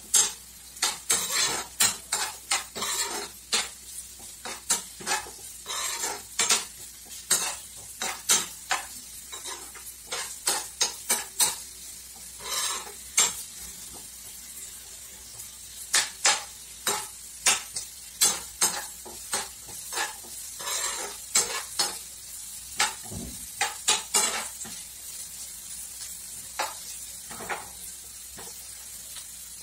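Sliced onions sizzling in oil in a non-stick frying pan, being fried to brown, while a metal spoon stirs them with frequent sharp clicks and scrapes against the pan. The stirring grows sparse in the last few seconds, leaving the steady sizzle.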